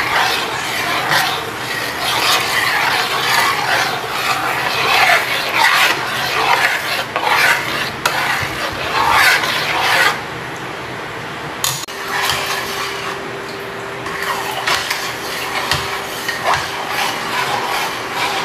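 A ladle stirring a thick coconut-milk and shredded-coconut mixture, scraping against the sides of a stainless steel pot in uneven strokes. The stirring pauses about ten seconds in, then goes on more softly.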